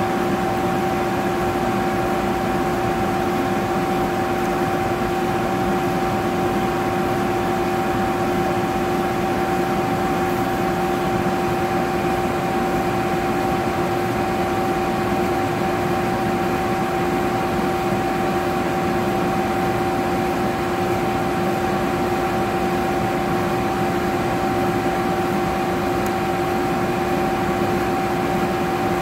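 Laser cutter running steadily as it slowly cuts through 3/8-inch acrylic at 85 power: an even mechanical hum with a constant tone and a second tone an octave above it.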